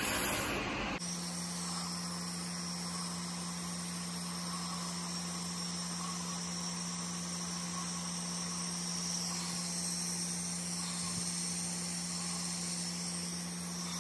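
Nebulizer compressor running steadily: a constant low hum with the hiss of air driving the jet nebulizer, starting about a second in.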